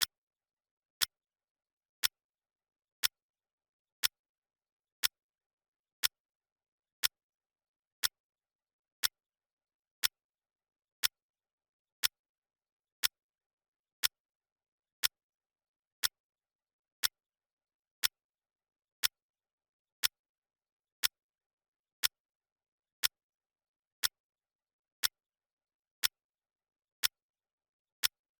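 Clock ticking sound effect: one sharp tick each second, evenly paced, with silence in between, marking the seconds of a countdown timer.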